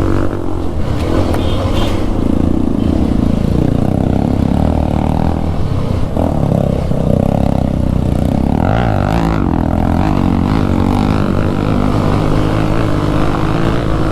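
Single-cylinder motorcycle engine running under load, its pitch rising and falling as the revs change.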